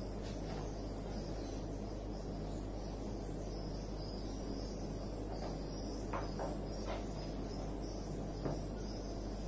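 Steady room tone: a low electrical hum under an even hiss, with a few faint ticks about six and seven seconds in and once more near the end.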